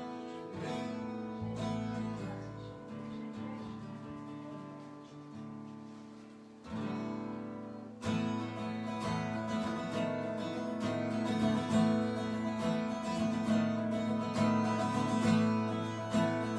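Acoustic guitar playing a song's instrumental intro: softer picked chords for about eight seconds, then fuller, louder strumming.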